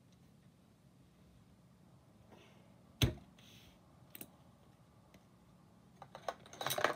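Plastic magnetic building tiles clacking as they snap together: one sharp snap about three seconds in, a lighter click a second later, and a quick run of clicks near the end.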